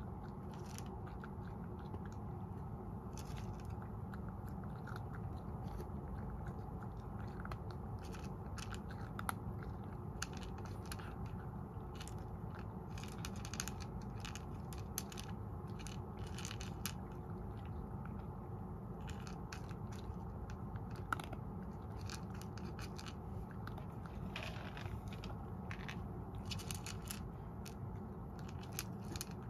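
A domestic cat eating from a small bowl, chewing and crunching its food in irregular clusters of short clicks over a steady low hum.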